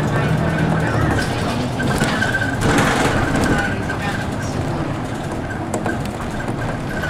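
City bus engine and road noise heard from inside the cabin as the bus slows behind queued traffic, with a short hiss about three seconds in.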